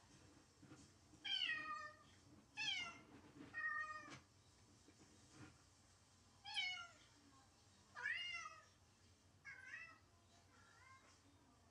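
A domestic cat meowing over and over, a lonely crying of about seven drawn-out meows that slide down in pitch, the last two softer.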